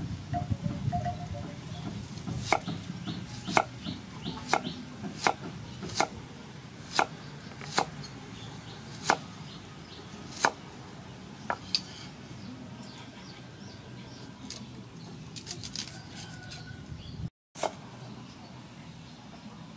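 Cleaver coming down on a thick round wooden chopping board while slicing an onion: about a dozen sharp knocks, roughly one a second, then fewer and lighter ones after about twelve seconds.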